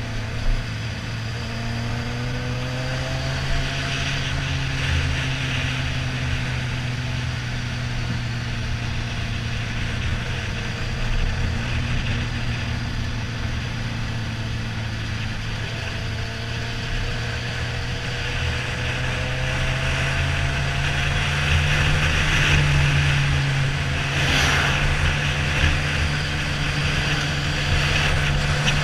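Suzuki GSX-R1000 inline-four engine running steadily at cruising speed, heard from the rider's seat with wind rushing over the microphone. The engine note climbs slowly in the last third.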